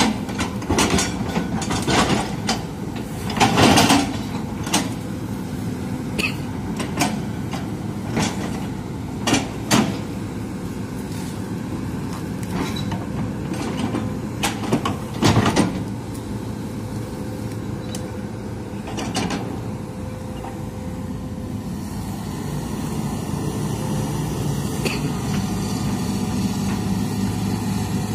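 Hitachi hydraulic excavator's diesel engine running steadily under hydraulic load as the bucket digs and dumps soil, with repeated sharp clanks and knocks from the bucket and linkage. The engine gets louder near the end.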